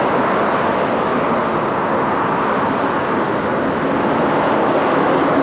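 Steady roar of road traffic, swelling slightly near the end.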